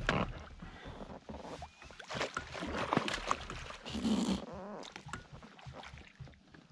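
A hooked cutthroat trout splashing at the surface beside the boat, then a landing net scooped through the water about four seconds in, with short knocks of gear being handled.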